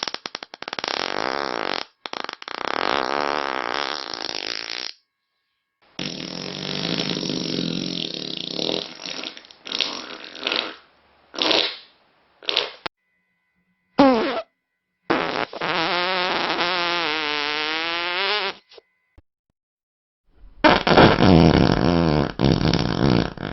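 Fart sound effects played one after another: separate loud farts of different lengths with short silences between. Some are short and sputtering; a long one has a wavering, bending pitch.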